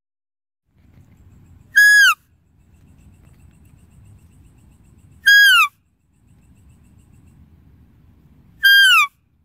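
Deer call: a short, high, whistle-like note that drops in pitch at the end, repeated identically three times about three and a half seconds apart, over a faint low rumble.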